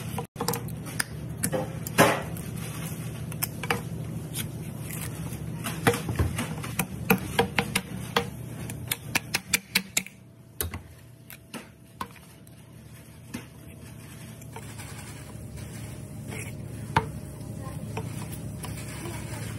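Butcher's boning knife cutting a lamb shoulder, clicking and knocking against the wooden chopping block and bone in a run of short sharp strokes. The clicks come fastest and most evenly between about six and ten seconds in, over a steady low hum.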